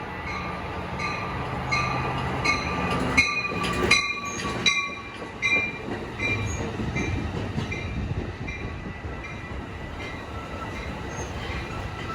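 A train passing with a low rumble and wheels clattering over rail joints, loudest a few seconds in, and a thin steady wheel squeal. A short ringing ding repeats about twice a second throughout.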